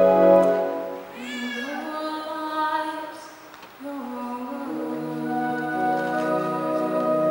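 A pipe organ chord dies away and a woman sings a phrase with vibrato, almost unaccompanied. About four seconds in, the organ comes back in with sustained chords under her voice.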